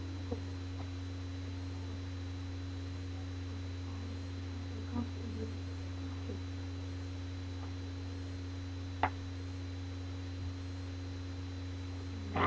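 Steady low electrical hum with a faint higher tone above it, broken only by a few faint clicks, the clearest about nine seconds in.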